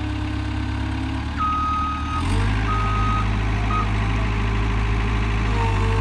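Diesel engine of a 2004 Caterpillar 257 rubber-track skid steer loader running steadily, getting a little louder about two seconds in as it works. Its backup alarm sounds three times from about a second and a half in: a long beep, a shorter beep and a brief blip.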